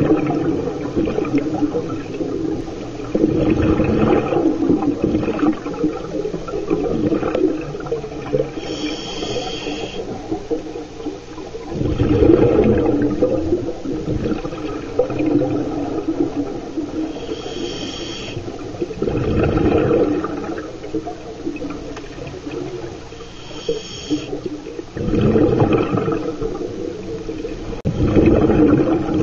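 Scuba regulator breathing underwater: three short whistling hisses of inhaled air through the regulator, each soon followed by a rumbling gush of exhaled bubbles, the cycle repeating every six to seven seconds.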